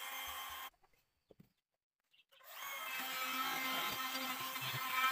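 Handheld trim router running as it routs the edges of wooden table-frame rails, a steady whine. The sound cuts out completely for about a second and a half soon after the start, then comes back and runs on steadily.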